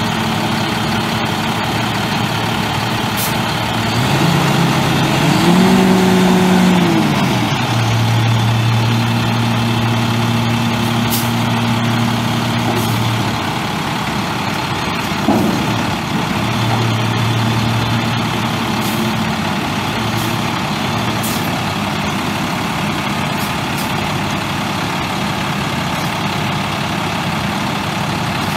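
International MaxxForce DT 7.6-litre inline-six turbo diesel idling steadily. About four seconds in it is revved once, held for a couple of seconds, then drops back to idle. A single sharp knock comes about halfway through.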